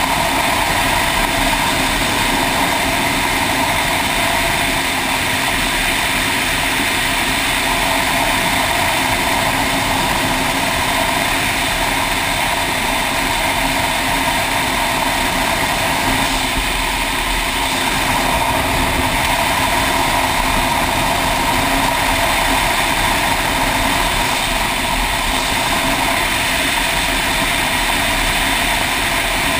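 Motorcycle riding along at a steady speed: a constant rush of wind over the microphone mixed with the engine's even drone, with no changes in pace.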